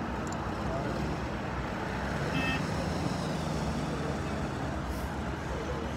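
Steady low rumble of vehicles and road traffic, with a brief high tone about two and a half seconds in.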